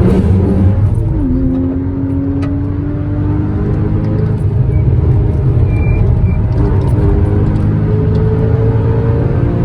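Porsche Cayman S (981) 3.4-litre flat-six engine under way at speed. Its note drops sharply about a second in, climbs slowly for several seconds, then climbs again near the end, over steady road and tyre rumble.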